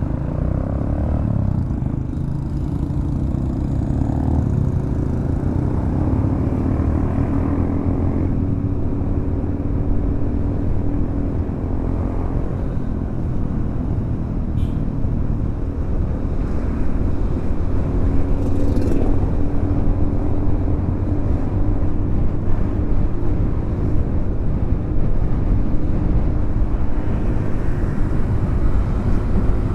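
Motorcycle engine running as the bike rides on after pulling away, with a steady low rumble of road and wind noise.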